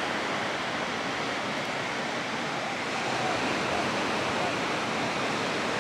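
Ocean surf breaking against the foot of a sea cliff, heard from the clifftop as a steady wash of noise.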